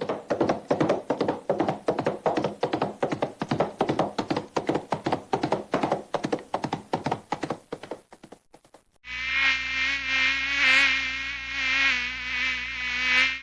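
Two edited sound effects back to back: a rapid buzzing pulse, about ten pulses a second, that slows and thins out before cutting off about nine seconds in; then a steady, slightly wavering tone with many overtones over a low hum.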